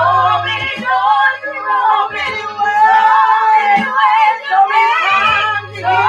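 Women singing a gospel song in wordless, wavering drawn-out notes, over low held bass notes.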